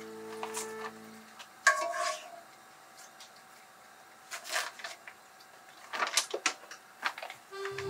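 A sharp metallic clink of tongs against the frying pan about two seconds in, then scattered crinkles and rustles of a plastic bag as seared duck breasts are put into it.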